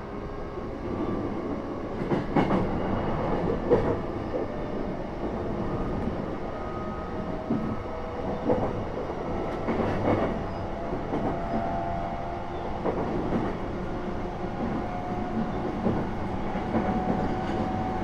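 An E233-3000 series electric train running along the line, heard inside the passenger car: a steady rumble of wheels on rail, broken by a few rail-joint clicks. A faint tone from the drive climbs slowly in pitch near the end.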